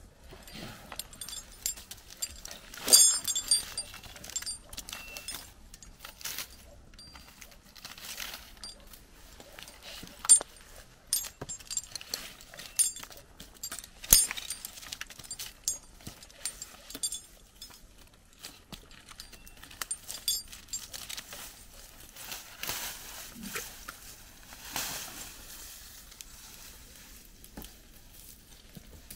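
Metal climbing hardware on a tree climber's harness jangling and clinking, with irregular knocks and scrapes as he works his way up a cedar trunk on a rope flip line. The loudest burst of jangling comes about three seconds in, and there are sharp single knocks around ten and fourteen seconds.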